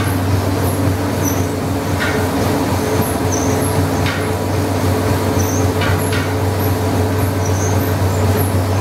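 Machinery of a working rice mill running: a steady low hum with a faint knock now and then and scattered short high chirps.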